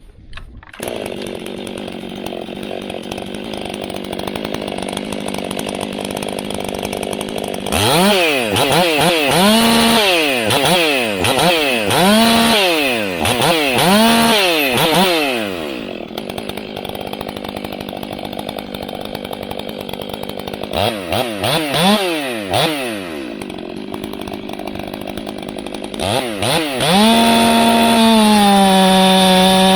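Ported Stihl 500i fuel-injected chainsaw running at idle, then revved in quick throttle blips, the pitch sweeping up and back down about five times and later twice more. Near the end it is held at full throttle at a high, steady pitch.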